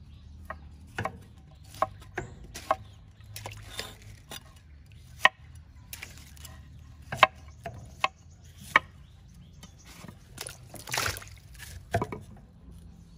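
Kitchen knife cutting cauliflower into florets on a wooden chopping board: irregular sharp knocks of the blade striking the board. About eleven seconds in, a short watery splashing as the pieces go into water.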